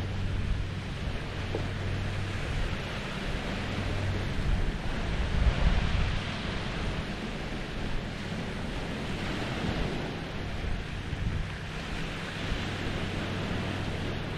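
Small Lake Huron waves lapping on the shore, swelling and easing every few seconds, with wind on the microphone. A low steady hum sits under it for the first four seconds or so, then fades.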